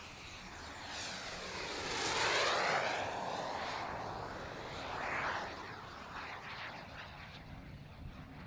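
Turbine-powered model Cirrus K glider with a JetCat P180 jet making a fast low pass: a jet rush that swells to its loudest about two to three seconds in, then sweeps down and fades, with a second smaller swell about five seconds in.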